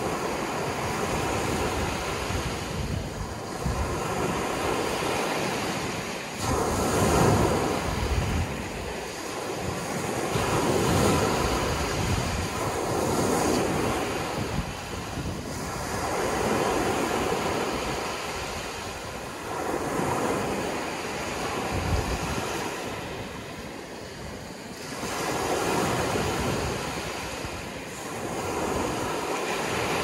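Ocean waves breaking as surf, a steady wash that swells and ebbs every three to four seconds.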